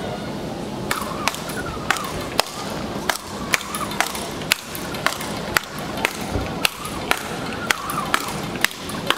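Speedball rally: a tethered ball hit back and forth with solid paddle rackets, sharp clacks about twice a second starting about a second in, with short squeaks between some hits.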